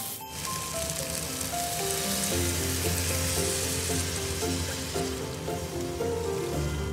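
Chicken pieces sizzling in hot oil in a frying pan as they are stirred, the sizzle loudest as water is poured into the hot pan for braising. The sizzle cuts off suddenly at the end.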